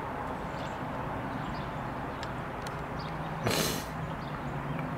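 Electric engine-hatch lift on a Four Winns Vista 275 running, a steady low hum under a noisy background as the hatch raises over the engine, with a short hiss about three and a half seconds in.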